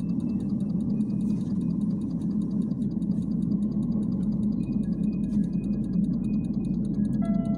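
Steady low hum and rumble of a Bogdan T701.10 trolleybus, heard from inside the passenger cabin, with a faint high whine coming and going. Near the end, a chime of several tones begins.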